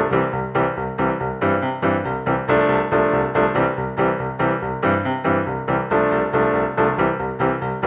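Background music: a piano or electric-piano melody of quickly struck notes in a steady rhythm.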